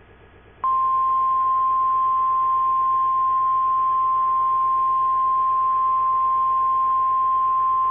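Emergency alert attention tone: a single steady, unbroken high tone that starts sharply just under a second in and holds without change.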